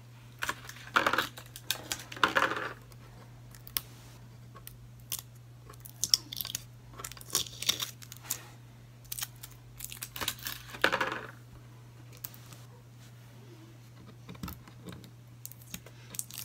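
Adhesive stickers being peeled off the back of a clock figurine: several short tearing rips, with small clicks and taps of handling in between.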